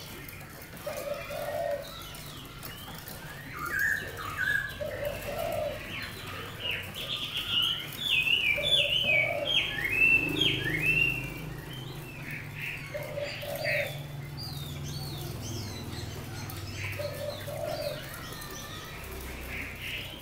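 Chinese hwamei singing: runs of quick whistled notes sliding up and down, loudest and densest in the middle, with quieter phrases either side. Behind it a low double coo, as of a dove, repeats about every four seconds.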